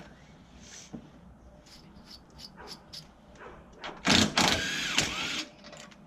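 Tools working on the intercooler's 10 mm mounting bolts: a few light clicks, then a loud mechanical burst lasting about a second and a half, about four seconds in.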